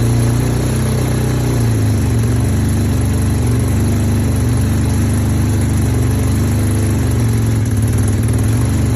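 Suzuki RE5's single-rotor Wankel engine idling steadily shortly after a cold start, its note shifting slightly about two seconds in.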